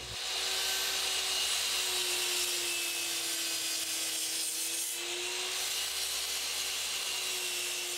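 Electric miter saw running and cutting through a thick walnut board: a steady saw whine over the hiss of the blade in the wood, the whine sagging slightly in pitch about halfway through the cut.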